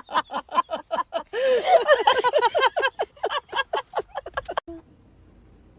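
An animal giving rapid repeated high yapping calls, about five a second, with a second animal joining and overlapping about halfway through; the calling stops suddenly near the end.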